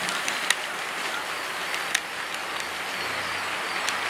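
Model trains running on the layout: a steady rush of wheels on track with scattered sharp clicks, two louder ones about half a second and two seconds in. A low hum joins about three seconds in.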